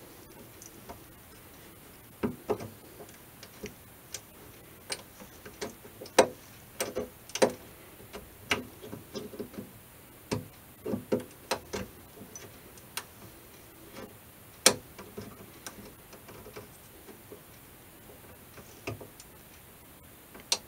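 Frets being pulled from a guitar fingerboard with fret-pulling nippers: irregular sharp clicks and small metallic snaps as the jaws grip and lever the fret wire out of its slots.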